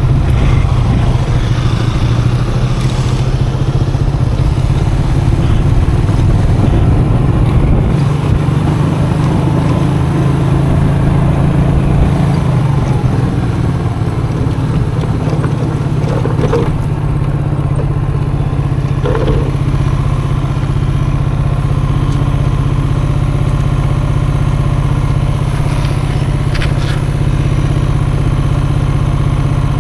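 Custom motorcycle engine running steadily while riding over a dirt track, with a few short knocks and rattles from the rough ground.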